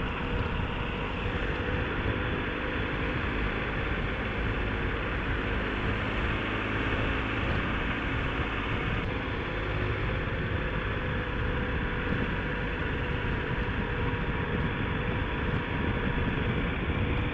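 Motorcycle engine running steadily while riding along a winding road at moderate speed, with wind and road noise on the bike-mounted microphone.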